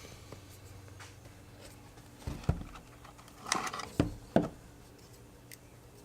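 Handling of a smart plug's retail packaging: a few sharp clicks and knocks with a light rustle, in a burst about two to four and a half seconds in.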